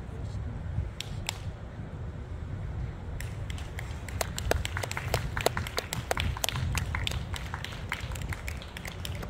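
Scattered, irregular clapping from a few people, starting about three seconds in and growing busier, over a steady low wind rumble on the microphone.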